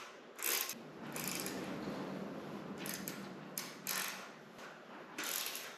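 Hand ratchet with a 3/16 hex bit clicking in several short bursts as small bolts are run in to fasten an air-intake elbow to its bracket, with light handling of metal parts between the bursts.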